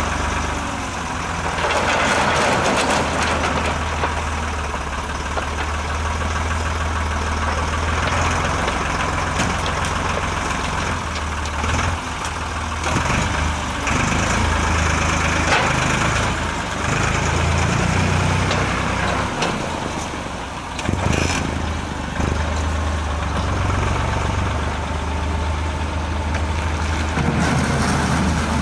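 Farm tractor's diesel engine running under changing load as its front loader lifts and tips coal into a steam locomotive, the engine note rising and falling as the loader works.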